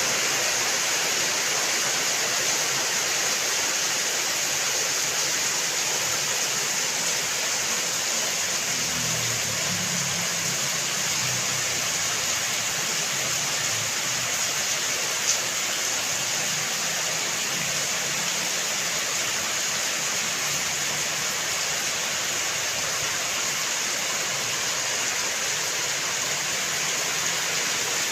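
Steady, even hiss of falling rain water, with one short tick about halfway through.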